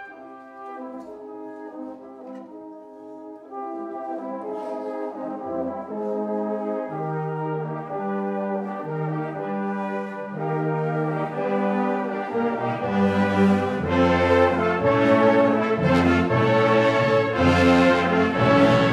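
Brass band playing a slow passage that starts quietly and swells steadily, growing loud and full about two-thirds of the way through.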